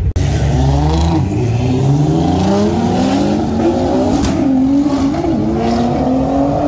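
A car engine accelerating hard, its pitch climbing steadily over several seconds with a brief wobble about two-thirds of the way through.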